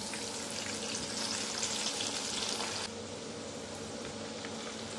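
Batter-coated spiral-cut potatoes on skewers frying in hot oil in a pan: a steady sizzling hiss that drops a little in level about three seconds in.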